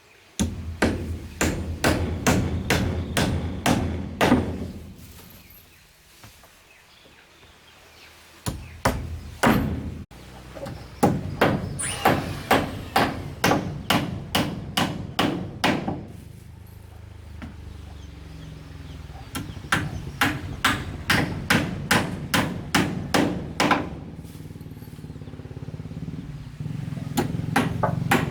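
Hammer blows struck in quick runs of about three a second, with short pauses between the runs.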